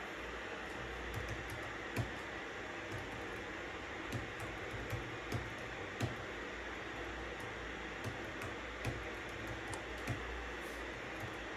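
Steady white-noise hiss with scattered, irregular computer keyboard keystrokes clicking over it.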